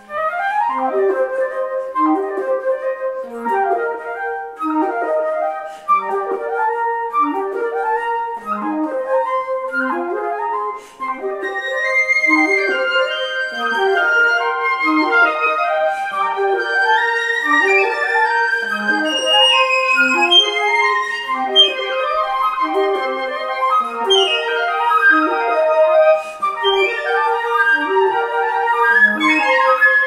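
A layered flute ensemble, piccolo and flutes, playing quick interwoven repeating figures; the music grows busier and higher about twelve seconds in.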